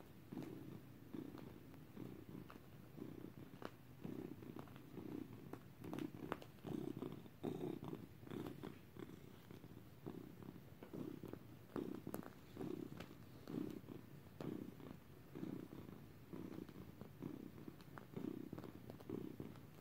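Long-haired cat purring close up, a low purr that swells and fades in a steady rhythm, about one swell every half second to second. Faint clicks and rustles are scattered over it.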